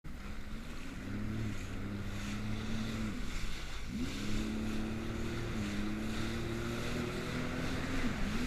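Jet ski engine running at speed, its pitch dipping briefly and picking back up twice, about four seconds in and near the end, over a hiss of wind and water.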